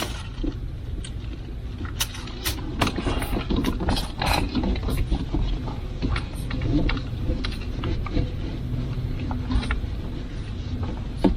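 Soaped 12-gauge Romex cable being pushed by hand into flexible conduit: irregular scraping and clicking of cable and conduit over a low steady rumble.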